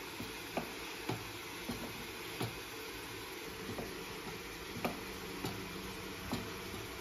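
Kitchen knife cutting through tomatoes and bell pepper, the blade tapping the wooden cutting board irregularly about once a second. Underneath is a steady faint sizzle of vegetables cooking in a covered pan.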